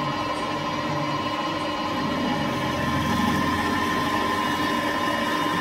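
Manual lathe running steadily while a 10.2 mm drill bores into the bar held in its chuck. This is the tapping-size hole for an M12 thread. A steady machine hum with a few fixed tones, and a little more cutting noise about halfway through.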